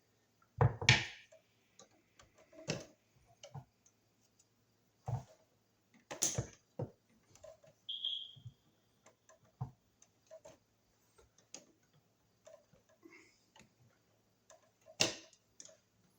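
Irregular small clicks and knocks of a plastic wire nut being twisted onto spliced copper wires and the wires being handled, with a few louder knocks and one short high squeak about eight seconds in.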